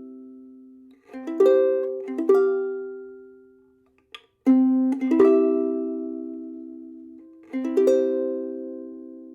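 Soprano ukulele with a 3000-year-old Sitka spruce top and pernambuco back and sides, played unprocessed. About five chords are strummed one at a time, each left to ring and fade out.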